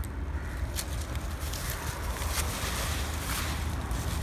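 Wind buffeting the microphone, a steady low rumble, with a few faint rustles over it.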